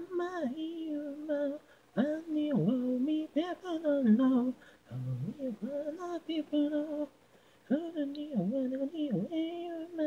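Lead vocal singing alone with no instruments: the isolated vocal track of a Japanese pop-rock song. It comes in sung phrases, with short breaths between them about two, five and seven seconds in.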